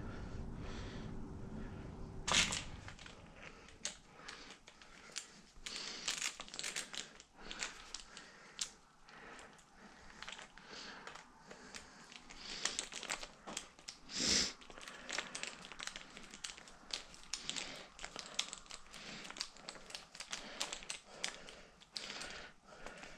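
Small clicks, ticks and scrapes of a hard drive being handled, seated in a drive caddy and screwed down by hand, with a sharper knock about two seconds in and another around the middle. A low hum stops with that first knock.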